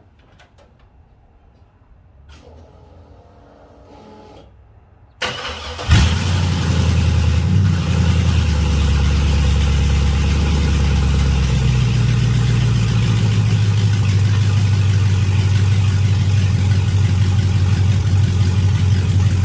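Cold start of a 1973 Chevy Nova running open headers, with no mufflers. About five seconds in there is a short burst of cranking, then the engine catches loudly and settles into a steady, loud idle.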